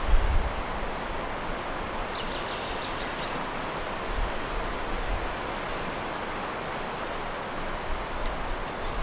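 Steady outdoor ambience: an even rushing noise of wind or running water, with gusts of wind on the microphone at the start and near the end. A few faint, high bird chirps come about two to three seconds in.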